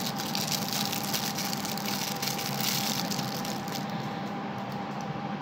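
Thin clear plastic wrapper crinkling and rustling as a pen is slid out of it, a dense run of small crackles that dies down about four seconds in. A steady electrical hum runs underneath.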